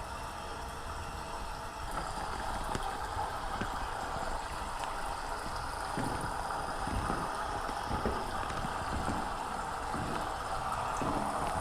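Steady car road noise with tyres hissing over a wet, snowy road.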